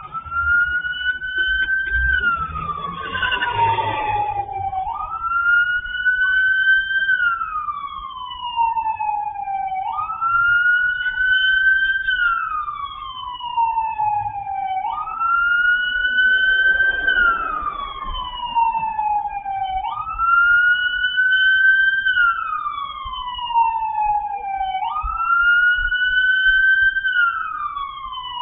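Police car siren wailing in a repeating cycle about every five seconds: each cycle climbs a little, falls steadily, then snaps back up to the top. A brief rushing noise comes twice under it, near the start and about halfway through.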